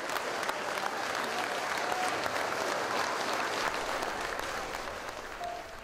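Audience applauding, a hall full of hands clapping, easing off slightly near the end.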